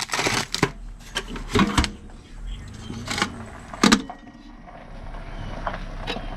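Metal hand tools clinking and knocking as they are picked up and shifted in a box, a handful of separate sharp clacks, the loudest about four seconds in, over a low steady hum.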